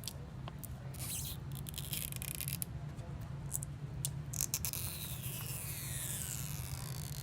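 Adhesive pull strip under an iPhone 6s battery being stretched out, crackling and squeaking in scratchy spurts, then a long falling squeal about four and a half seconds in. The sound is typical of the strip stretching and releasing properly when pulled flat.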